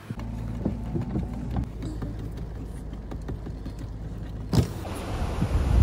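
Car driving on a wet road, heard from inside the cabin: a steady low rumble of road and engine noise, giving way about four and a half seconds in to a louder rushing hiss.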